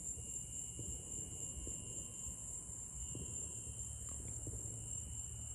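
Insects chorusing with a steady high-pitched drone, over a low rumble.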